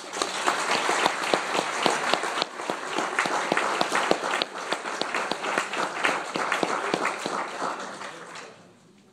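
Audience applauding, with single claps close to the microphone standing out sharply. It starts suddenly and dies away about eight seconds in.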